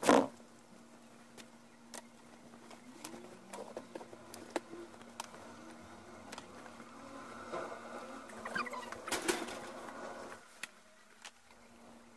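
Light handling noises from cardboard egg crates and a plastic bin: a sharp knock at the start, then scattered taps and clicks over a steady low hum. A brief warbling, bird-like call comes about nine seconds in.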